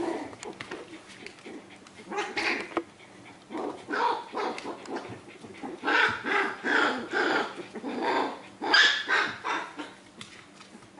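Australian Terriers yipping and whining in short bursts, several times over, with a quick run of yips in the middle.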